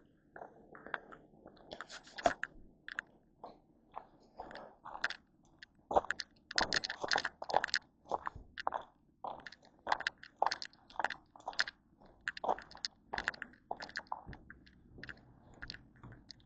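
Footsteps crunching on a hiking trail, a run of short, irregular crunches about one to two a second.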